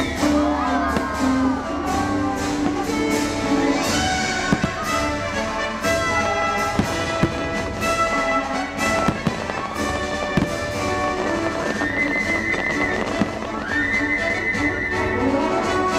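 Aerial fireworks bursting in rapid succession, many sharp bangs throughout, over loud show music.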